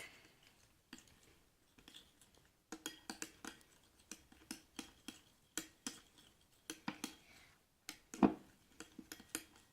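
A spoon stirring glue and water in a bowl, knocking and scraping against the bowl in irregular clicks, about two a second, with one louder knock near the end.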